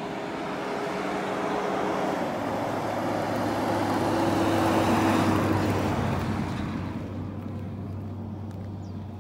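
A motor vehicle passes by. Its noise swells to a peak about five seconds in and then fades, and the engine's pitch drops as it goes past.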